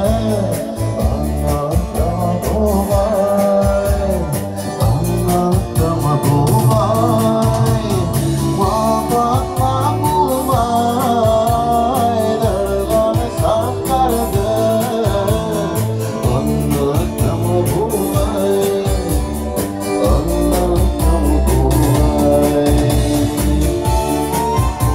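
A man singing into a handheld microphone, his voice amplified, over instrumental accompaniment with a steady pulsing bass.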